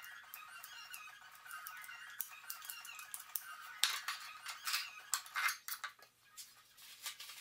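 A steel filling knife scraping filler into a skirting board, then a quick run of clicks and scrapes about four seconds in as the knife is laid on a tile and tools are handled. Light background music plays in the first half.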